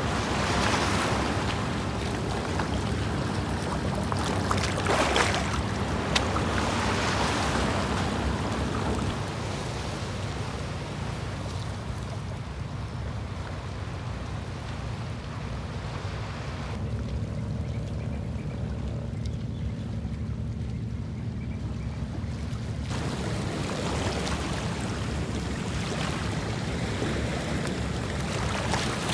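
Small sea waves washing and lapping over shoreline rocks, surging several times, with wind rumbling on the microphone. The wash is quieter for a few seconds past the middle.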